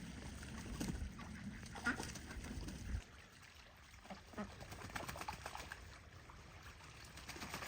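Ducks calling faintly, with scattered short quacks, over a low rumble that stops abruptly about three seconds in.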